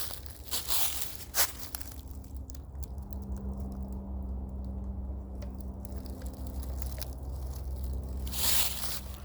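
Footsteps crunching through dry leaf litter: a few steps in the first second and a half and again near the end, with a still pause between.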